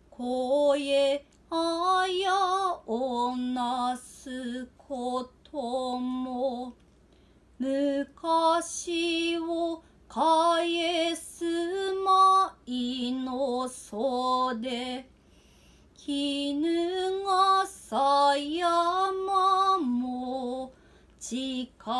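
Unaccompanied Noh chanting (su-utai) by a solo woman's voice: short phrases held on a few steady pitches that step up and down, with a wavering vibrato on the held notes and brief pauses between phrases.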